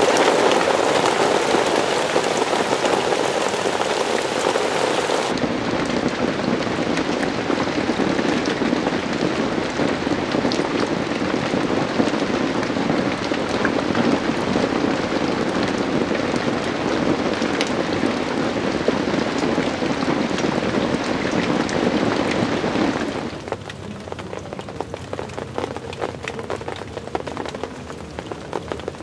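Steady rain falling, a dense hiss of drops spattering on surfaces. About 23 seconds in it becomes a much quieter, sparser patter.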